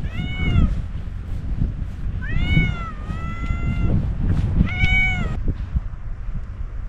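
Domestic cat meowing three times: a short call, a longer drawn-out one, then another short call, a cat calling out to another cat.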